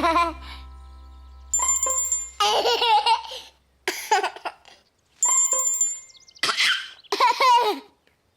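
A bright bell rings twice, each ring short, about four seconds apart. Between and after the rings a baby babbles and laughs.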